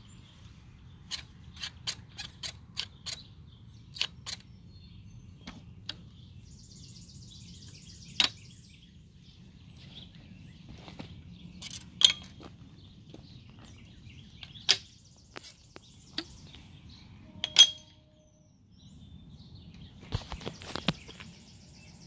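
Metal clicks and clanks of a plunger-style gate latch on a chain-link fence gate being worked: the plunger lifted and dropped and the gate knocking against the latch. A quick run of light clicks comes first, then separate sharper clanks, the loudest about four seconds before the end.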